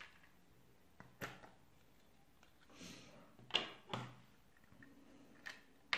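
A white plastic fountain-pen case being opened by hand, its lid pulled off and set down. There is a click about a second in, a short rustle, then two sharp knocks close together just after the middle, and a small click near the end.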